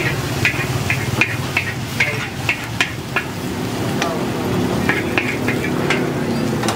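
Metal spatula clanking and scraping against a steel wok as noodles are stir-fried, in quick irregular strikes that pause for a moment midway and pick up again, over a steady low hum.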